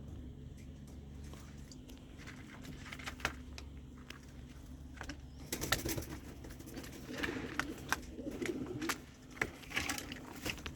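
Racing pigeons cooing in a loft, louder from about halfway through, with scattered sharp clicks and knocks over a steady low hum.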